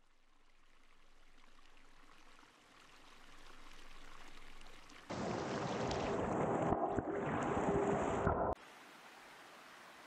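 Rushing stream water, a steady noisy wash that grows gradually louder. About halfway through it turns much louder and closer for some three seconds, then cuts off abruptly to a quieter wash.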